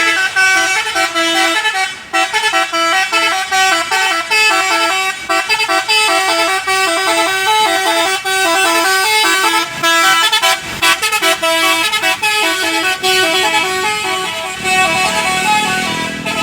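Telolet basuri musical multi-tone air horn playing a fast, stepping melody of short notes. A lower, slowly rising drone joins near the end.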